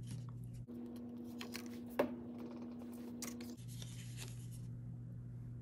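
Faint rustling and light taps of a folded cardstock flap being handled, with one sharper click about two seconds in, over a steady low hum.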